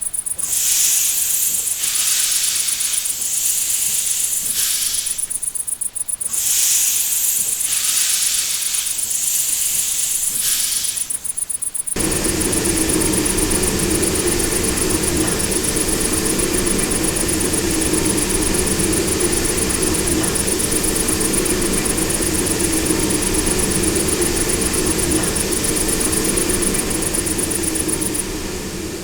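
Crickets chirping in quick trills. About twelve seconds in, a steam locomotive whistle starts abruptly with a hiss of steam and holds steady for about sixteen seconds, easing off near the end.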